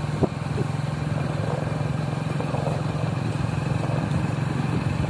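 Motorcycle engine running steadily while riding, with one short knock just after the start.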